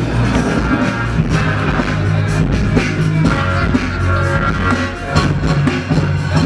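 Loud music with a steady drum beat, bass and guitar, playing for the dancers.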